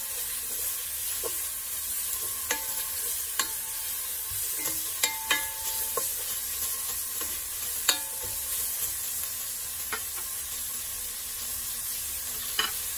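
Garlic sizzling in hot oil in a cooking pot as it is sautéed, a steady hiss, with a utensil knocking against the pot about ten times in ringing clinks as it is stirred.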